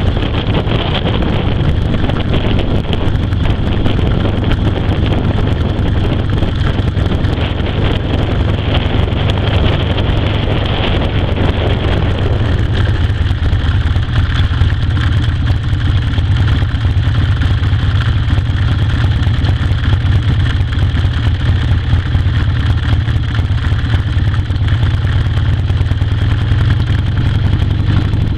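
Moving vehicle's engine and road rumble with wind noise on the microphone, steady and heavy at the low end. The higher wind and road noise eases about halfway through, and a rising engine tone comes in near the end as it speeds up.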